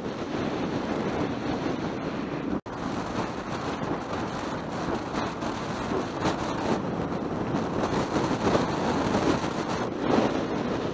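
Wind rushing over the microphone and road noise from a Yamaha XT600E motorcycle riding at road speed, its engine running underneath. The sound drops out for an instant about two and a half seconds in, at an edit.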